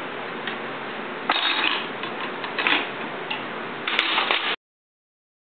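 Metal cutlery clinking as forks and spoons are dropped into a plastic drawer organizer. The clinks come in small clusters about a second and a half in, near three seconds, and around four seconds, over a steady hiss. The sound then cuts off abruptly.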